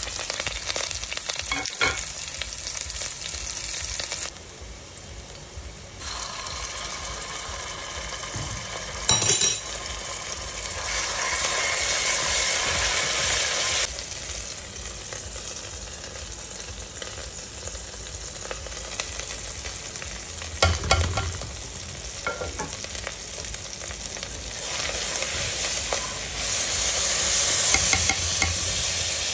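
Sliced onions and green chilies sizzling as they fry in hot oil in an aluminium pressure cooker, a steady hiss that grows louder and quieter in turns. There are a couple of brief clinks, and the sizzle is loudest near the end.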